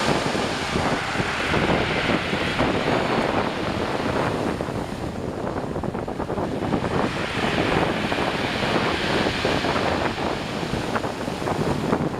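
Black Sea storm surf breaking and washing on the shore, a dense rushing noise that swells and eases twice, with wind buffeting the microphone.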